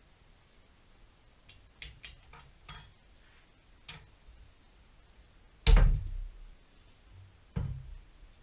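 Scattered light clicks and knocks, then a heavy thump about five and a half seconds in and a smaller one about two seconds later: tools and a clamped driveshaft knocking against a wooden workbench during attempts to break loose a very tight driveshaft bolt.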